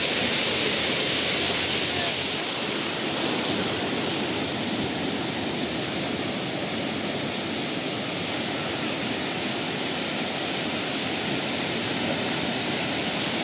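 Sea surf washing onto a sandy beach: a steady rush of small breaking waves and swash around wading legs, hissier and louder for the first two seconds or so, then settling to an even wash.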